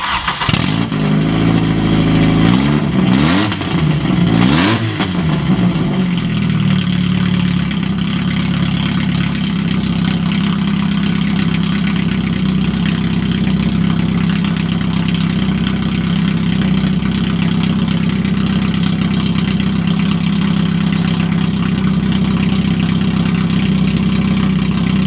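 A VW Golf Mk1's 2.0 8V four-cylinder engine running with no exhaust fitted, so it sounds loud and raw. In the first few seconds it is revved a few times, the pitch rising and falling, then it settles to a steady idle.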